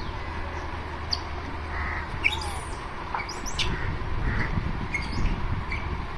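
Scattered short, high animal chirps and squeaks, a dozen or so, over a steady low outdoor rumble that grows rougher and louder about halfway through.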